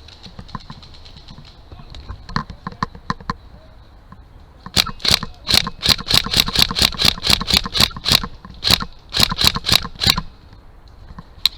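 Airsoft rifle firing rapid single shots in strings, about four or five sharp cracks a second with brief pauses, preceded by a quieter run of shots.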